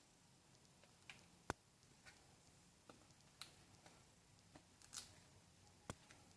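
Faint, irregular clicks and taps, about eight of them, the sharpest about a second and a half in, over near silence.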